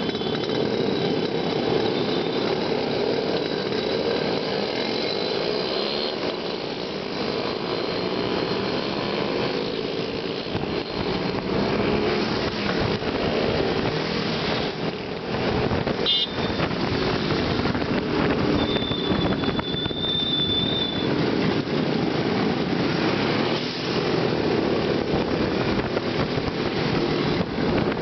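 Many Yezdi and Jawa two-stroke motorcycles running together on the move, heard from one of the bikes in the pack: a steady, busy mix of engine buzz and road noise.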